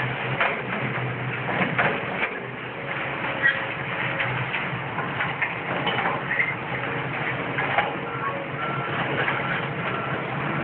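Hydraulic excavator demolishing a brick building: its diesel engine runs steadily under irregular knocks and clatter of breaking brick and wood debris.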